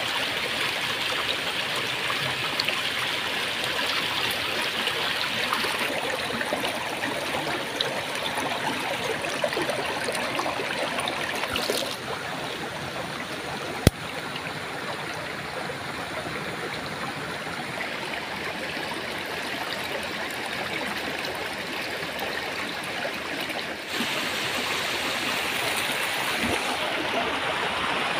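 Stream flowing over rocks, a steady rush of water, with one sharp click about halfway through.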